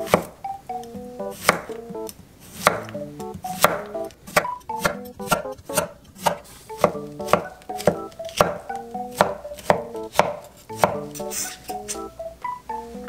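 A wide-bladed kitchen knife slicing Korean zucchini on an end-grain wooden cutting board: repeated sharp chops of the blade striking the wood, about one or two a second. Light background music plays underneath.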